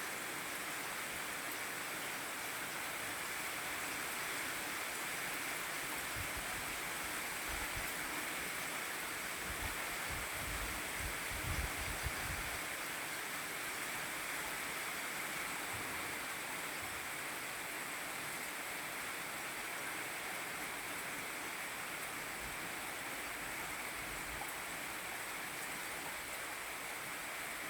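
Rain falling steadily, an even unbroken hiss. A few short low rumbles come through near the middle.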